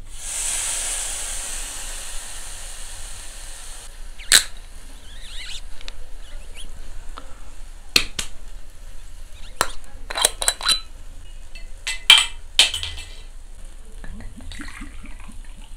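Marinated pork neck galbi sizzling as it is laid on a small charcoal grill's hot grate, a loud hiss for about four seconds that then settles. Sharp metallic clicks and clinks follow at intervals, and near the end soju glugs as it is poured from the bottle into a shot glass.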